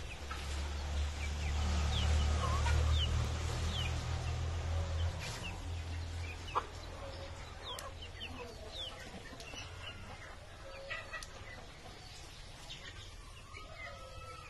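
A flock of Silkie chickens clucking and peeping in short, falling chirps scattered throughout, with a low rumble over the first few seconds that fades away.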